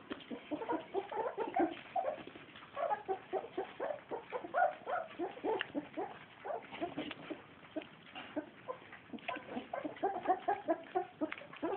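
Several young puppies eating together from a shared pan, making a rapid run of short squeaks and grunts over wet smacking and lapping sounds.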